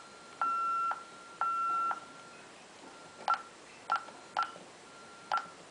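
Ademco 6160V alarm keypad beeping: two steady half-second beeps about a second apart, the exit-delay warning after arming away, then four short key-press beeps as a 4-digit disarm code is entered.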